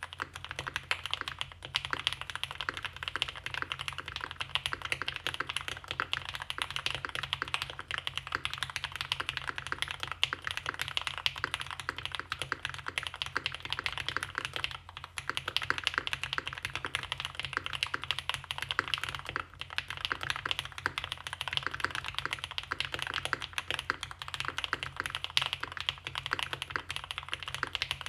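Fast, continuous typing on a Mode 80 mechanical keyboard with lubed and filmed Cannonkeys Lavender switches, a POM plate, foam-dampened case and GMK Umbra keycaps. The keystrokes come in a dense unbroken stream, with a couple of brief pauses midway.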